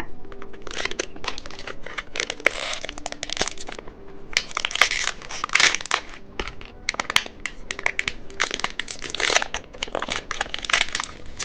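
Plastic candy wrapping crinkling and crackling in irregular bursts as a novelty candy egg's packaging is handled and torn open.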